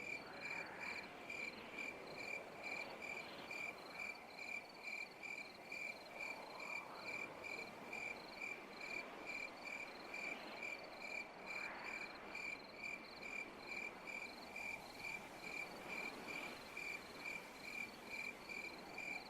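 Night insects, crickets chirping in an even, regular pulse a little over twice a second, over a steady hiss of other insects.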